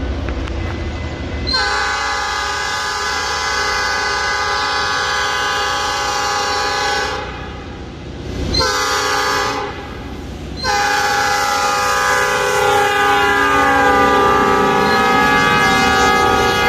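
EMD GP38 diesel locomotive's multi-tone air horn sounding for a grade crossing: a long blast, a short one, then a long blast held as the locomotive comes alongside, its pitch sagging as it passes. A low diesel rumble is heard before the horn starts.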